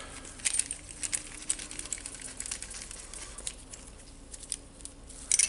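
Irregular light clicks and taps of hand tools against small metal parts as a ball bearing is worked on inside a router, with a louder quick cluster of clicks near the end.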